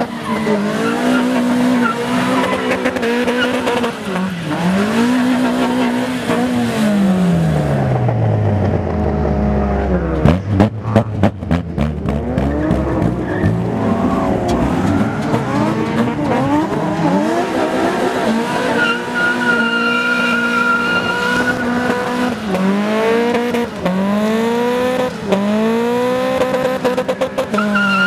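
Twin-cam Toyota Corolla AE86's engine revving up and down over and over as the car spins donuts, its rear tyres squealing on the wet tarmac. There is one long falling rev about a quarter of the way in, then a rapid run of sharp pops and crackles about ten seconds in.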